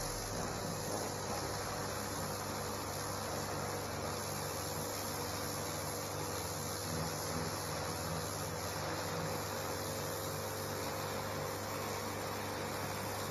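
Stihl electric pressure washer running steadily: a continuous motor-and-pump hum and whine, with the hiss of the water jet spraying the patio paving slabs.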